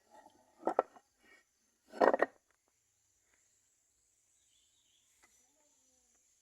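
Two brief clattering knocks, about a second and a half apart, the second the louder, over a faint steady high-pitched insect drone.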